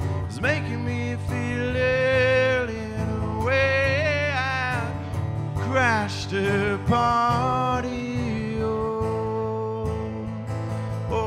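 Live acoustic music: a man singing, with sliding and wavering notes, over his own acoustic guitar.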